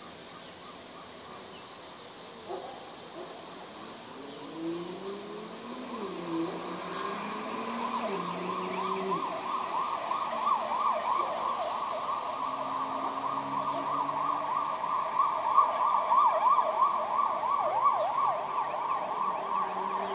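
Emergency vehicle sirens in a fast up-and-down yelp, coming in about a third of the way through and growing steadily louder. A lower tone glides up and down shortly before them.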